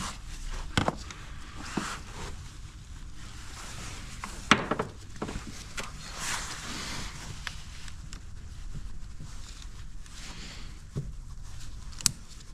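Hand work with tools and parts in a car's engine bay: scattered clicks and knocks, the loudest about four and a half seconds in, with a rustling stretch around six seconds and a sharp click near the end.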